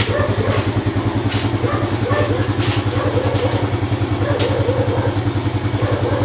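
Yamaha Vega Force i's single-cylinder four-stroke engine idling steadily with an even pulse, freshly top-overhauled.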